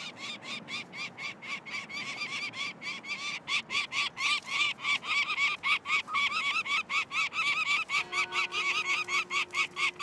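Month-old peregrine falcon chick calling in rapid, even, harsh notes, about five a second, while it is handled.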